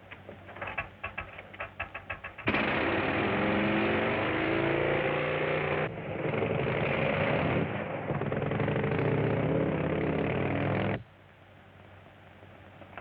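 Train sound effect on an old film soundtrack: quick regular clicking, then a sudden loud rush of a train running at speed that cuts off abruptly about eleven seconds in.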